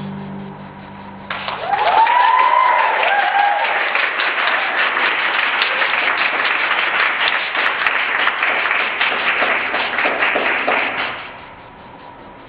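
The music ends and an audience breaks into applause with a few cheers in its first seconds; the clapping holds steady, then dies away near the end.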